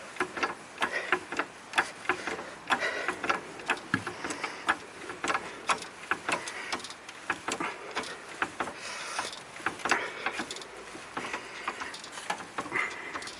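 Car jack being worked to raise the van, giving a run of irregular light metallic clicks and knocks, a few a second.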